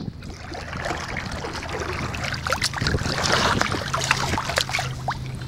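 Lake water splashing and lapping against a kayak's hull while it is paddled around, with many small irregular splashes. A low steady hum runs underneath.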